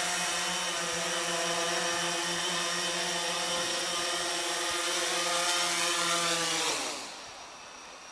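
IdeaFly Mars 350 quadcopter's motors and propellers humming steadily as it descends to land, then winding down with a dip in pitch and level near the end as it settles on the ground.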